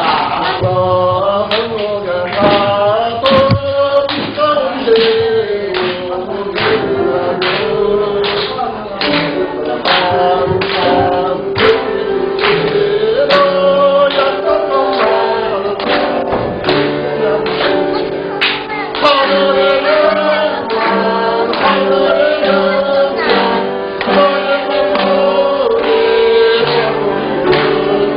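Congregation or choir singing a hymn with instrumental accompaniment and a steady beat.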